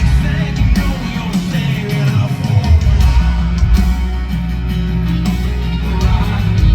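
Live country-rock band playing loudly through a stretch without lead vocals: electric guitars, a heavy bass line and drums.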